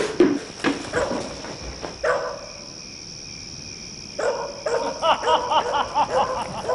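A dog yelping and whining in distress, the ruler's dog that has eaten poisoned meat. Short cries come in the first two seconds, then a pause, then a run of quick rising-and-falling whines.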